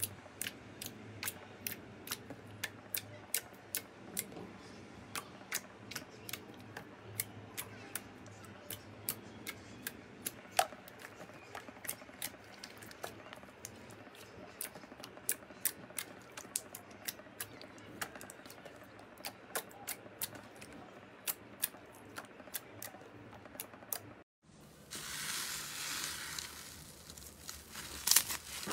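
Thick glossy slime pressed and poked by hand, giving sharp wet clicks and pops, about two or three a second. Near the end, after a short break, a crackling hiss as a textured slime is pulled and stretched out of a plastic tub.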